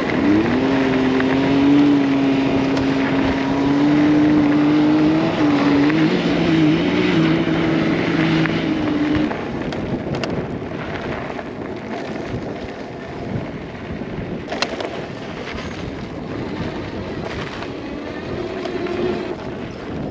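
Off-road vehicle driving on a dirt trail. A steady motor drone holds for about the first nine seconds, then gives way to rough tyre and wind noise that slowly fades.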